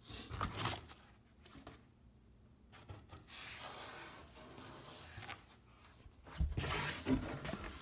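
Cardboard scraping and rustling in three stretches as the box flaps are pushed and rubbed, with a few dull bumps near the end.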